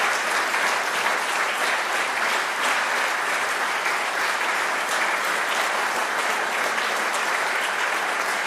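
An audience applauding: steady, sustained clapping from a full hall.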